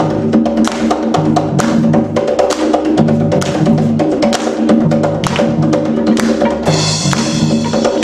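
A live rock band plays a Latin-style instrumental. A drum kit and hand percussion drive a busy beat over bass notes and sustained keyboard chords. A cymbal crash comes near the end.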